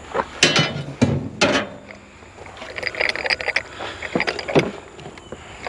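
Scrap metal parts being handled and pulled at by hand: a few sharp clanks and knocks, then a run of rattling clicks, then two more knocks, as parts that are stuck fast refuse to come free.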